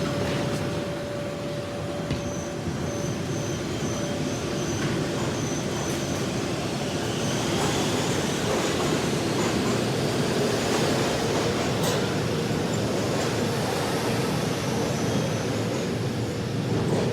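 Subway train running at the platform: a steady rumble of wheels on rail that swells a little after the first several seconds, with a thin high squeal coming and going.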